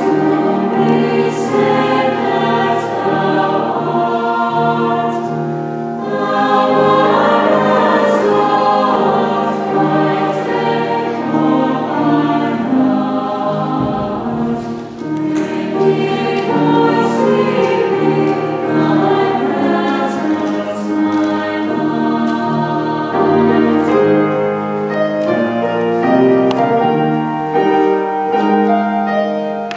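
A high-school chamber choir singing together, with a short dip in loudness about halfway through.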